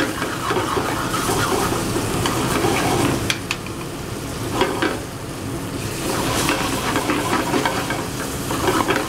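Diced kielbasa sausage, garlic and floured chicken breasts sizzling in canola oil and butter in a hot sauté pan. Metal tongs clink against the pan a few times around the middle as the pieces are moved.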